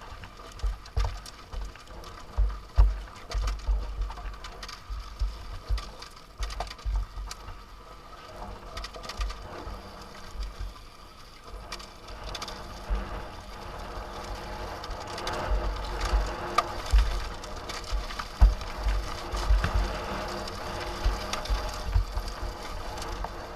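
Dirt bike engine running steadily under way, with wind buffeting the microphone in frequent low thumps.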